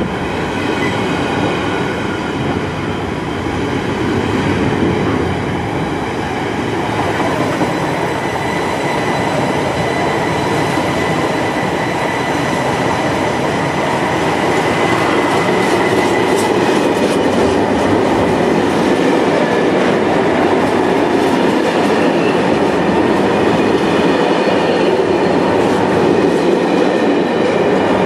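Container freight train's loaded flat wagons rolling past at close range: a steady, loud rumble and clatter of steel wheels on rail, with a faint high tone about halfway through.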